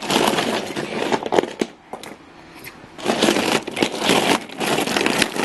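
Small plastic toy trains clattering and rattling, a dense run of small clicks and knocks; it dies down for about a second after the first second and a half, then picks up again.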